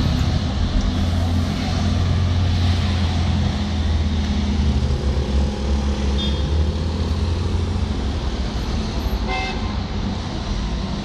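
City bus engine running as the bus pulls past close by, a steady low hum that eases after about seven seconds, over street traffic. A short horn toot sounds about nine seconds in.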